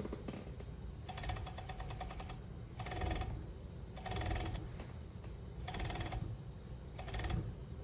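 Industrial sewing machine stitching a seam in knit fabric in five short stop-start bursts of rapid clatter, the first about a second long and the others about half a second each.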